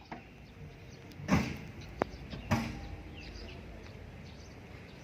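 Three short knocks over a low steady background noise: a thump about a second in, a sharp click about half a second later, then another thump.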